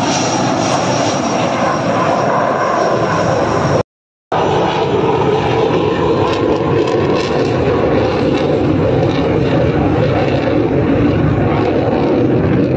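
Loud, steady jet engine noise from the Surya Kiran team's BAE Hawk Mk132 trainers, each powered by a single Rolls-Royce Adour turbofan, as they move on the tarmac. The sound cuts out completely for about half a second, roughly four seconds in.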